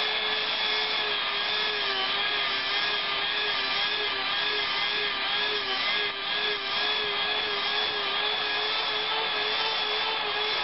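A small handheld power tool runs steadily with a high whine that wavers slightly in pitch as it works the inside edges of a foam helmet piece, beveling them smooth.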